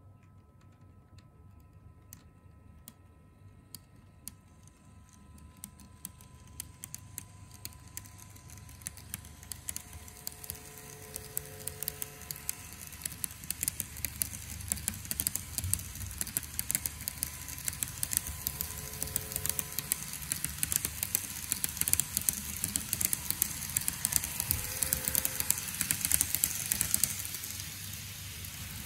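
N-gauge model train (TOMIX E231 series) running along its track, its wheels clicking quickly and steadily over the rail joints. The clatter grows louder and denser as the train nears and passes close by, then falls off near the end.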